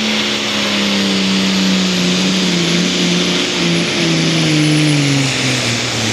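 Turbocharged diesel pulling tractor making a pull against the sled, its engine note sinking steadily over several seconds as it is loaded down. A thin high turbo whistle rides over it and fades near the end.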